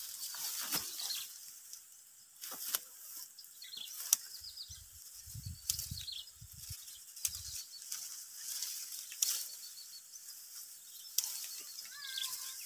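Dry hill-rice stalks and leaves rustling as the rice panicles are cut by hand with a small harvesting blade, with sharp snipping clicks every second or two.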